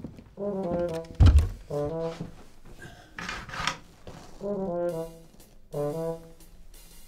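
Background film music on brass instruments, playing short phrases of a few notes with pauses between them. A heavy low thump about a second in is the loudest sound, and a brief rustle comes near the middle.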